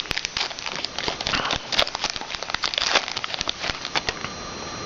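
Wrapper of a pack of trading cards being torn open and handled, a dense irregular crinkling and crackling that stops about four seconds in.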